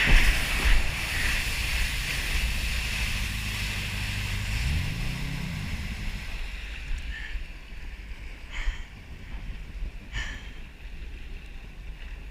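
Jet ski running on the water, with wind on the microphone and rushing water. About five seconds in, the engine pitch rises and falls once. Then the sound drops to quieter wind and water, with two brief bursts of noise.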